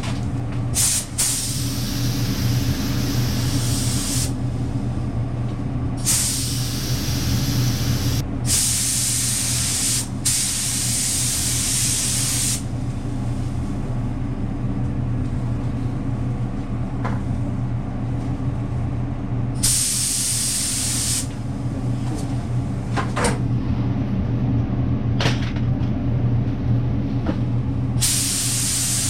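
Paint spray gun spraying primer in separate bursts of hiss, about six of them lasting one to four seconds each, over a steady low machine hum.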